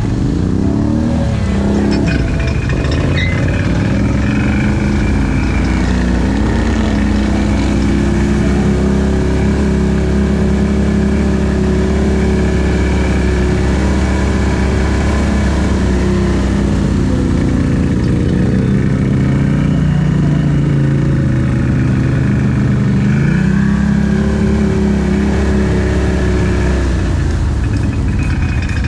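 ATV engine running under way, its pitch falling and rising several times as the throttle is eased off and opened again, over a steady rush of noise.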